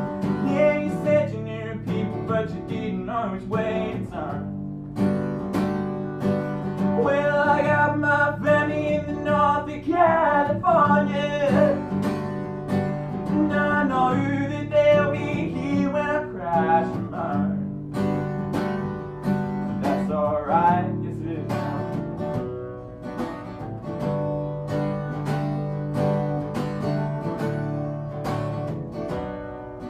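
Acoustic guitar strummed in a live song, with a voice singing a wavering, wordless-sounding melody over the middle part.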